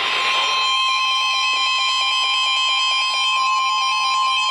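Weather alert tone: a steady, loud alarm tone with a rapidly alternating higher beep pattern over it. Radio static fades out in the first half second as the tone takes over.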